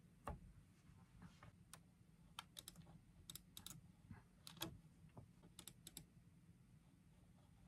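Faint, irregular key clicks of someone typing on a computer keyboard.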